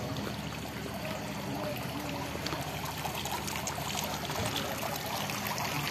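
Water trickling and splashing steadily down a tiered garden fountain into its basin.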